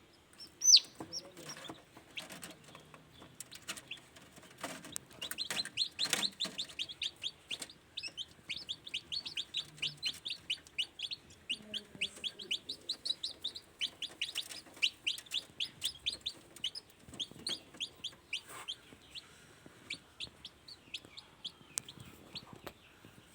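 Newly hatched kampung chicks peeping: a long run of short, high chirps, each falling in pitch, several a second, starting about five seconds in. A sharp click about a second in and a few lighter knocks come before the peeping.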